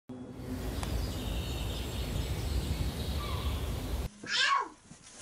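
Wind buffeting the microphone as a heavy, fluctuating low rumble, with faint high tones above it. It cuts off abruptly about four seconds in, and a short high-pitched cry follows that slides up and then down in pitch.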